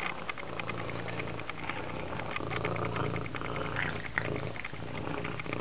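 Cat lapping water, its tongue making rapid wet clicks, over a low purr that comes and goes.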